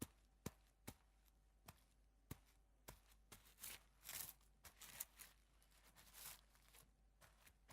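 Faint footsteps on soft ground: several sharp steps about half a second apart, then slower, longer scuffing steps from about three and a half seconds in.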